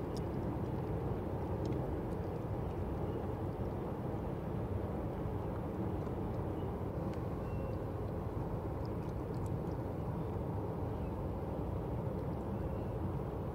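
Steady low rumble and hum of a small tanker's engine as the ship runs along the canal, with a couple of faint short high peeps.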